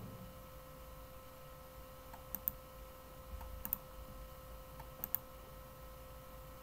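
Computer mouse clicking: three quick double clicks spaced about a second apart, over a faint steady electrical hum.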